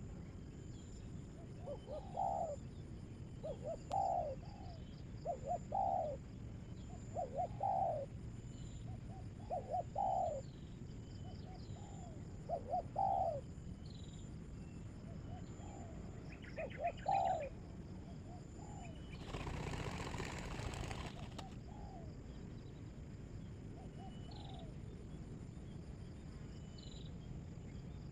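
A dove gives short cooing calls of two or three notes, repeated every second or two: the call that keepers name 'batuk' ('cough'). A brief flurry of wing-flapping comes about two-thirds of the way in, and insects chirp steadily in the background.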